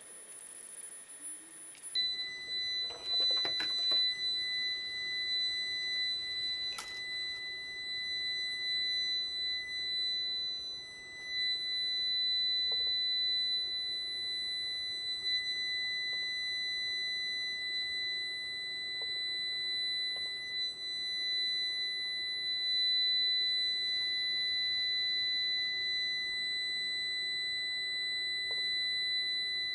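Steady, high-pitched electronic buzzer tone that starts about two seconds in and holds unbroken, with a few faint clicks of handling soon after it begins.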